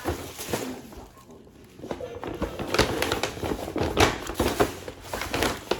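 Irregular rustling and light knocks of things being handled, with a short lull about a second in.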